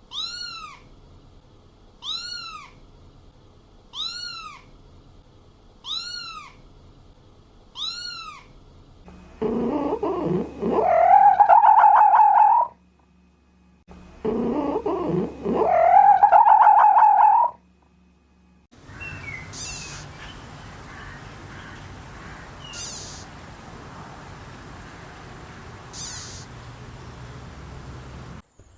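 A sequence of animal calls: five short, high calls evenly spaced about two seconds apart, then two long, loud calls that rise in pitch and hold, then a noisy stretch with a few brief squeaks.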